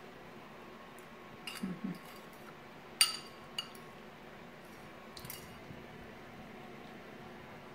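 Metal fork clinking against a ceramic bowl while picking up food: several short, light clinks, the sharpest about three seconds in.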